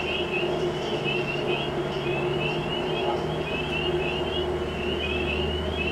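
A chorus of short, high, rising chirps, several a second in overlapping runs, from small animals the recordist takes for insects rather than frogs or birds. A steady low hum runs underneath.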